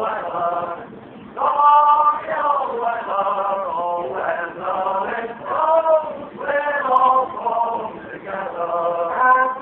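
A man singing, with long held notes in phrases broken by short pauses.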